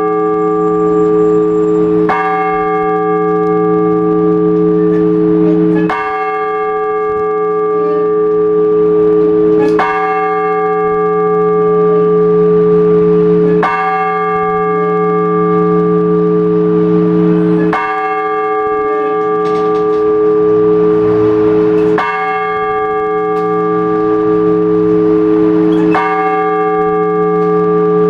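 An Orthodox church bell struck slowly and evenly, one stroke about every four seconds, each stroke ringing on into the next. This is the measured single-bell ringing (blagovest) that calls the faithful to the All-Night Vigil.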